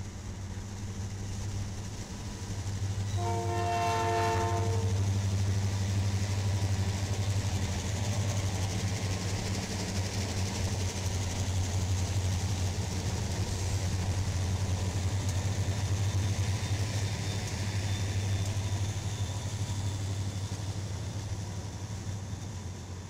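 Kansas & Oklahoma Railroad diesel locomotives passing close by with a steady low engine drone. They sound one short multi-tone horn blast about three seconds in, followed by the rumble of the freight cars rolling past.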